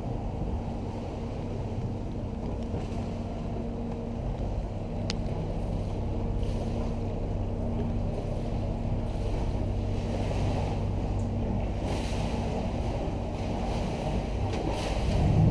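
A sightseeing boat's engine running with a steady low drone, mixed with water wash and wind noise on the microphone. A single short click sounds about five seconds in.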